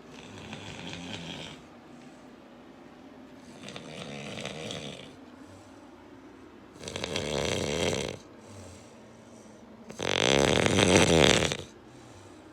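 A woman snoring loudly: four long, rattling snores about three seconds apart, each louder than the one before.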